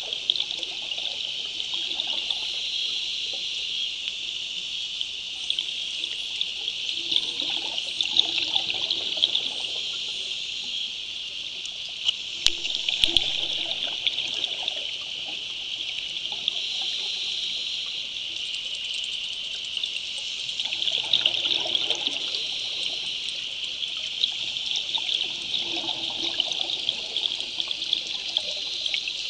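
Underwater sound of scuba diving: a steady crackling hiss of the sea, with the diver's exhaled regulator bubbles surging up every few seconds.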